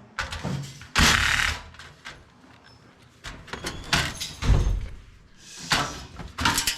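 Scattered bangs, knocks and scraping clatter of a computer case being stripped for scrap, metal parts pulled out and dropped; the loudest are a half-second crash about a second in and a heavy thump about four and a half seconds in.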